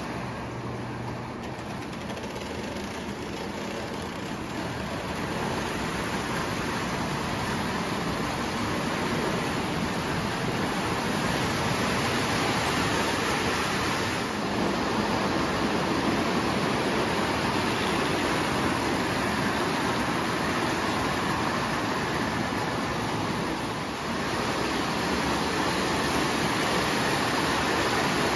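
Marx tinplate O gauge train running on tinplate track: a steady rolling rattle of tin cars and wheels on the rails that builds over the first several seconds, with two brief dips partway through.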